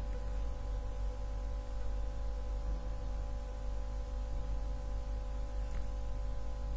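Soft background music: a steady drone of held tones over a low hum, unchanging throughout.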